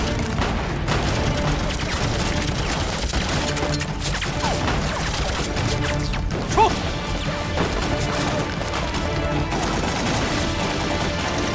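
Film battle sound: repeated gunshots and impacts over a background music score, with one louder sharp hit about two-thirds of the way through.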